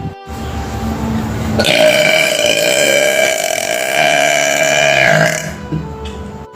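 A woman burping: a low rumble, then one long, deep burp held for about three and a half seconds that trails off near the end.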